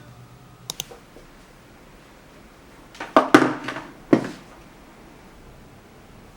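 Small objects being handled on a desk: two light clicks just under a second in, then a short cluster of knocks and rustling about three to four seconds in, with quiet room tone in between.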